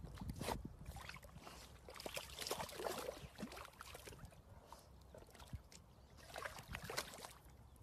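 Golden retriever splashing through a muddy puddle: irregular sloshes and splashes of water as it wades and pushes its face through the mud.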